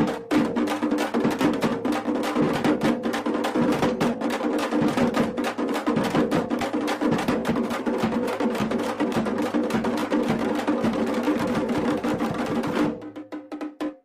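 Fast, continuous percussive beating over a steady ringing tone. It stops abruptly about 13 seconds in and trails off into a few lighter taps.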